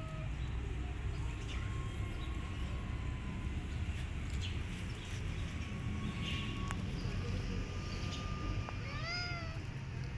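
A cat meowing: the end of a rising meow at the very start, then one clear rising-and-falling meow about nine seconds in, over a steady low background rumble.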